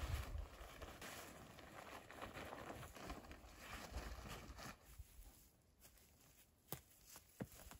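Faint rustling and scuffing of handled material, dying away after about five seconds, with two light clicks near the end.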